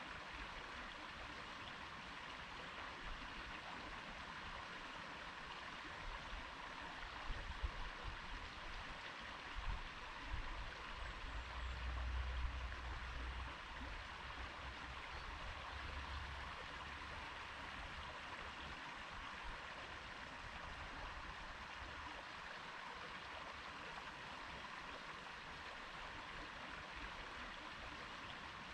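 Small stream flowing over stones, a steady rushing and babbling of water. A spell of low rumbling with a few louder thumps comes and goes a little before the middle.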